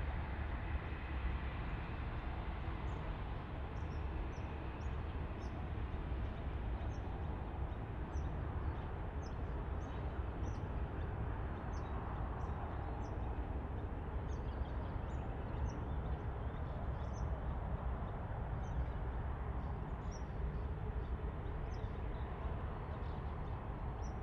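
Boeing 787-10 jet engines at taxi power: a steady low rumble with a broad hiss that swells slightly around the middle as the aircraft passes closest. Short high chirps repeat every second or so over it.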